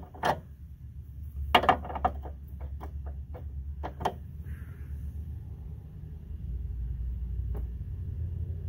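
Short runs of light metallic clicks, about five a second, from a socket ratchet being worked on the suspension bolts, with a lone click later. A steady low rumble sits underneath.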